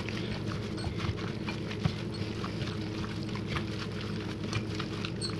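Wet squelching and patting of a gloved hand mixing beef cubes into a thick marinade in a glass dish, with small irregular clicks and taps throughout.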